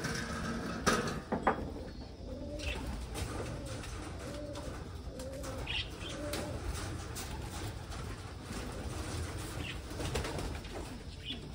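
Racing pigeons cooing: a run of repeated low, arching coos, with two sharp knocks about a second in.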